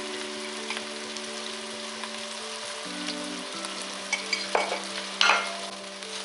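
Sliced onions sizzling as they fry in oil and butter in a steel pot, with a steady crackling hiss. About four and a half and five seconds in, a wooden spoon scrapes and stirs against the pot, the loudest sounds. Soft background music with held notes runs underneath.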